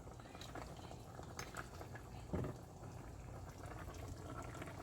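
Pot of chicken feet soup boiling, a steady bubbling with small scattered pops. A single soft knock about two and a half seconds in.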